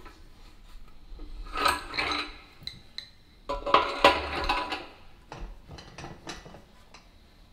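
Metal engine parts and hand tools clinking and clattering against each other in three short clusters of sharp clinks, with quieter pauses between.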